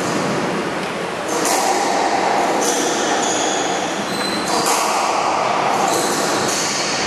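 Squash rally: the ball knocks off the rackets and the walls about every second or so, and sneakers squeak in short high chirps on the wooden court floor, over a steady hall din.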